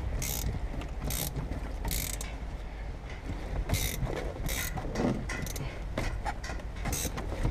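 Ratchet wrench cranking a windshield cut-out wire winder, pulling the cutting line through the urethane: short bursts of ratchet clicking about once a second, unevenly spaced.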